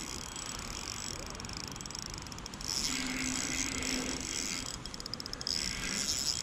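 Spinning reel being cranked to retrieve the line, its gears giving a fine, even whirring rattle. The cranking gets louder in two spells, about halfway through and again near the end.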